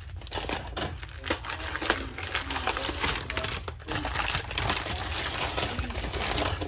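Food packaging crinkling and rustling as it is handled, with scattered sharp clicks and knocks.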